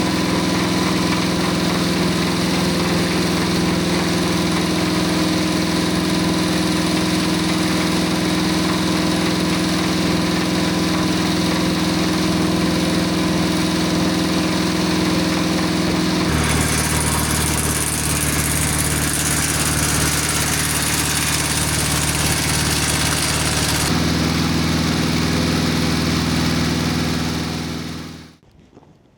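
Circle sawmill's gas engine running steadily. About 16 s in the engine pitch drops and a high hiss joins for about eight seconds as the circular blades cut through the log, then it returns to its earlier steady running. The sound stops abruptly near the end.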